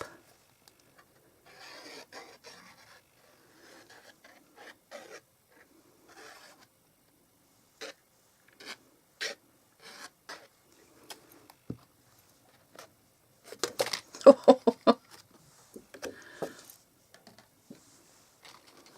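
Cardstock being handled and layered: paper rustling and rubbing, with scattered light taps and clicks and a louder spell of handling about two thirds of the way through.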